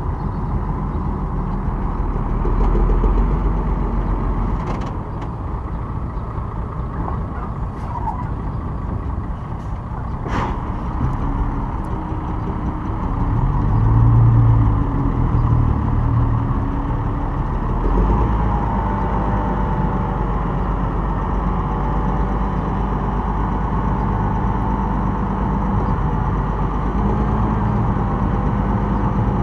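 Heavy diesel construction machinery running steadily, the engines of bulldozers and dump trucks at work. The engine sound swells louder for a couple of seconds about halfway through, with a few sharp clicks before that.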